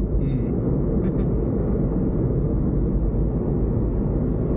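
Steady road and engine noise inside a moving car's cabin: an even low rumble.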